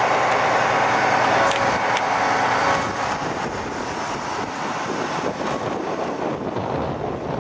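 A heavy wrecker truck's engine runs under load while it pulls a chain on a braced timber truss assembly. The engine note eases off about three seconds in. A few sharp cracks come from the lighter wooden braces, which are starting to come apart under the pulling force.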